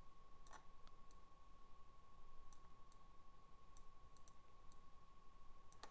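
Faint computer mouse clicks, a dozen or so at irregular intervals, over near-silent room tone with a faint steady thin whine.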